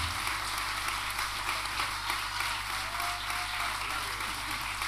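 Audience applauding steadily, a dense patter of many hands. A low held note from the band stops just as it begins.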